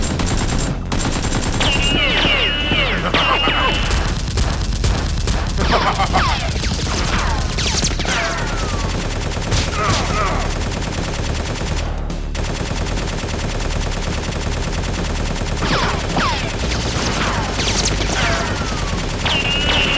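Sustained rapid gunfire, the shots running together like automatic fire, with short falling whistling tones cutting through it again and again.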